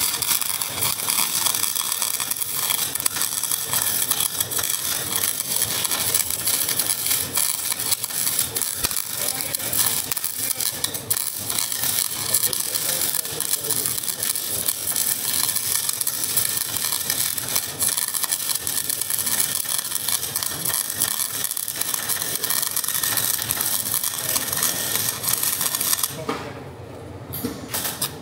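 MIG welder arc crackling steadily while a weld is laid on a broken leaf spring; it stops briefly near the end, then strikes up again.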